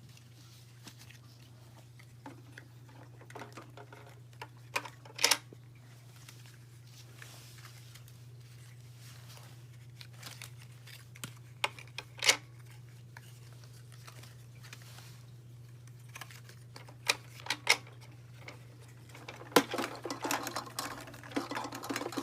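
Small toy pieces being handled: a scattering of light clicks and knocks from play food and toy ice cubes, more frequent near the end, over a low steady hum.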